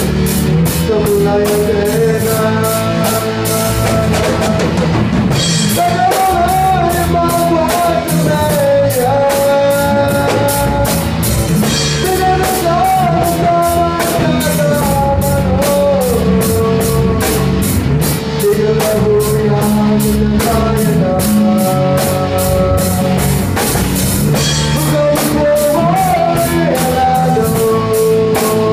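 Rock band playing live: electric guitars carrying a melody over bass and a drum kit keeping a steady cymbal beat.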